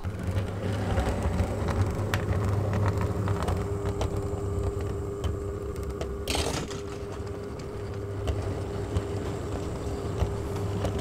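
Heljan Class 33 OO gauge model diesel locomotive's electric motor running with a steady hum and whine as it hauls a heavy rake of freight wagons at a slow crawl, with scattered light clicks from the wheels on the track. A brief rustle about six and a half seconds in.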